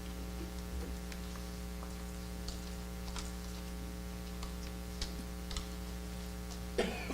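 Steady electrical mains hum with faint, scattered small ticks, and a brief louder sound near the end.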